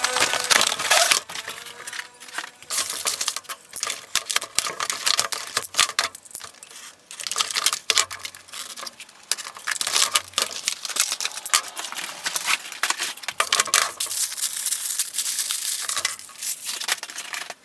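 A cardboard toy box being unpacked by hand: rustling and scraping of cardboard with a stream of irregular clicks and clatters as hard plastic blaster parts are lifted out and set down on a table.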